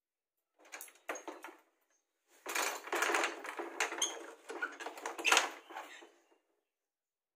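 Household handling noise as a curtain is pushed aside and a wooden door is handled: rustling with light clicks, knocks and a few short metallic clinks. It starts about half a second in, gets louder after two seconds, and stops about a second before the end.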